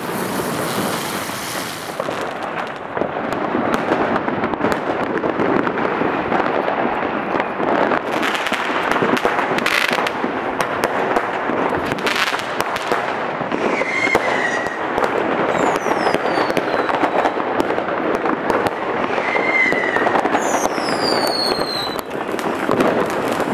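Dense, continuous barrage of consumer fireworks and firecrackers going off all around: constant crackling and sharp bangs, with three or four whistles falling in pitch from about halfway to near the end.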